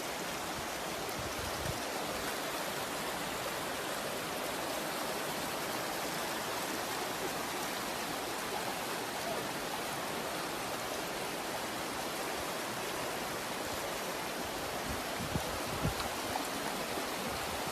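Floodwater from a burst water main rushing steadily, an even, unbroken hiss of flowing water. A few faint knocks come near the end.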